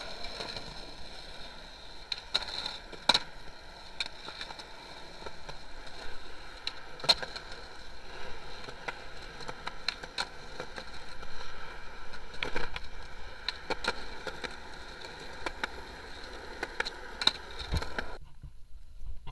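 Skateboard wheels rolling on concrete and asphalt, with a string of sharp clacks from the board popping and landing. The sound cuts off suddenly near the end.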